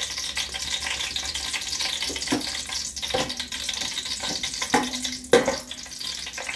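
Whole spices (cinnamon, bay leaf, cardamom, cloves) sizzling steadily in hot ghee and oil in an aluminium pot. In the second half a metal slotted spoon stirs them, knocking against the pot a few times; the loudest knock comes near the end.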